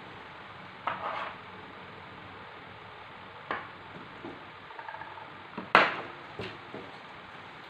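Scattered knocks and clatters of kitchen items being handled on a worktop, the loudest about six seconds in, over a steady faint hiss.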